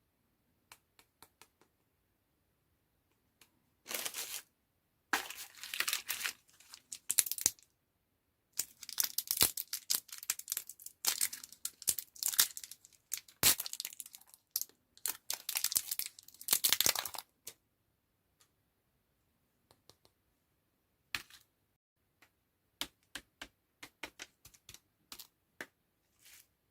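Plastic candy wrappers being crinkled and torn open by hand, in a run of bursts through most of the middle stretch, with scattered light clicks and taps at the start and near the end.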